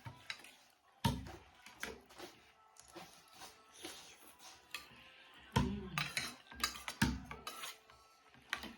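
Cutlery clinking and scraping against bowls during eating, in irregular clicks with a few heavier knocks.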